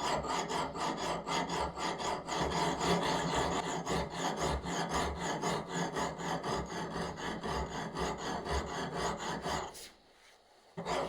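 Rapid, rhythmic rasping strokes of a hand file or abrasive worked back and forth, about four or five strokes a second; they stop for a moment about ten seconds in, then start again.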